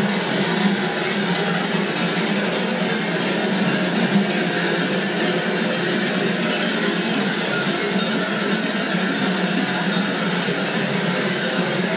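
Many large metal bells worn at the waists of kukeri dancers clanging continuously as the group dances, a dense, unbroken jangle.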